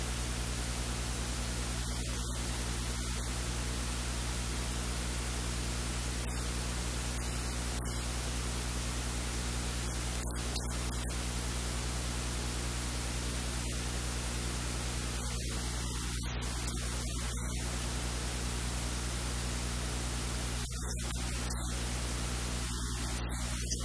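Steady hiss and static with a low mains hum, unchanging throughout: electrical noise in the recording.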